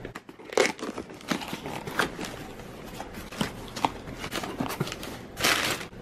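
A cardboard shipping box being opened by hand: packing tape tearing and cardboard and paper crinkling, in scattered short clicks and rustles, with one louder burst of tearing near the end.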